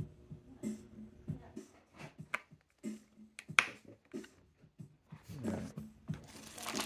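Irregular light clicks and taps of hard plastic toy-kitchen pieces being handled and pressed into place, with one sharper knock a little past the middle.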